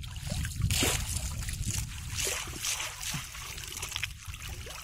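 Shallow water sloshing and splashing as a person wades and handles a bamboo fish trap, with water trickling and dripping off it. There are several louder splashes, the biggest about a second in.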